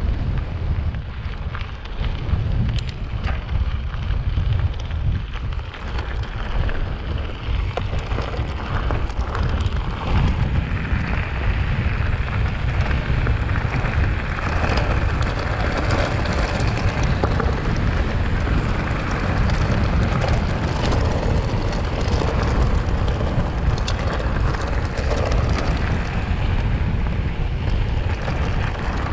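Mountain bike tyres rolling over a loose gravel track: a steady grainy crunch with many small stones ticking. Heavy wind rumble on the microphone runs underneath.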